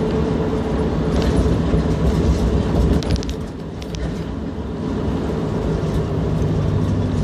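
Steady low rumble of a moving car heard from inside the cabin, with a few short clicks about three to four seconds in.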